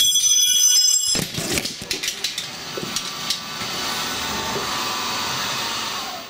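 CNC mill spindle spinning up with a chuck-locking wrench left on it: a high whine, then the wrench flying off in a clatter of hard knocks as it strikes safety glasses and a camera tripod and the camera falls. A steady machine noise follows and cuts off suddenly near the end.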